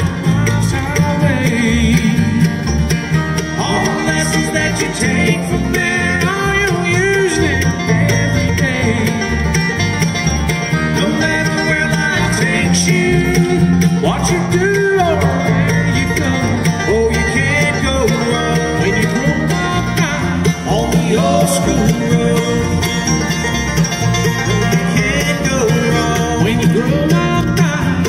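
Live bluegrass band playing a song: banjo, mandolin, guitar and electric bass, with a man singing lead.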